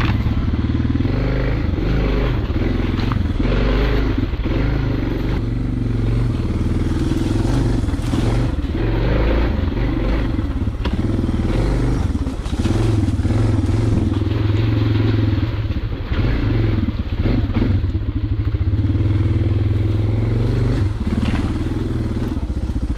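Suzuki DR650's single-cylinder engine running under load as the bike is ridden over a muddy, rutted trail. Frequent knocks and clatter come from the bike jolting over the rough ground.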